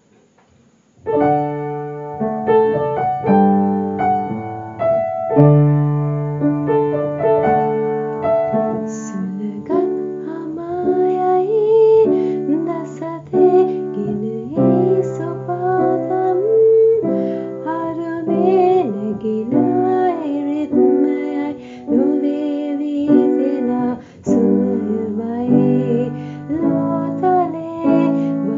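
Background music: a piano song with a female voice singing, which starts after a brief pause about a second in.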